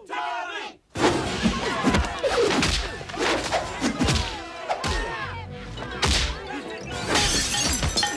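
Movie fight sound effects: a quick run of punches, kicks and thuds with shouts and grunts over music, and a crash of something breaking near the end.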